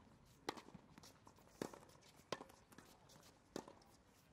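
Tennis ball struck on racket strings and bouncing on a hard court during a baseline rally: four sharp pops about a second apart, with light footsteps between.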